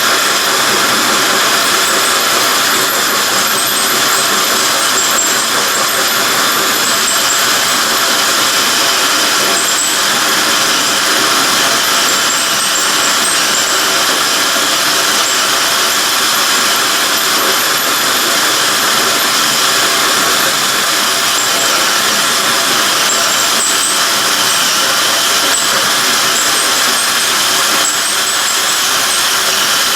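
Hand-held electric drill turning a 1 3/16-inch hole saw slowly through the 1/4-inch wall of 6-inch tubing, cutting steadily without a break.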